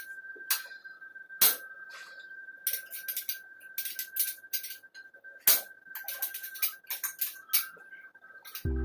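Irregular sharp metallic clinks and clicks, with loud strikes about one and a half seconds in and about five and a half seconds in: tools and engine parts being handled during a teardown. A faint steady high tone runs underneath, and music starts near the end.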